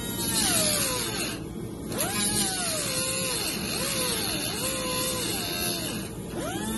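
Pneumatic cut-off wheel cutting through the rusted sheet-metal floor pan of a Jeep Cherokee XJ. It makes a hissing whine that sags in pitch as the disc bites into the metal and climbs back as it frees, over and over, easing off briefly about a second and a half in.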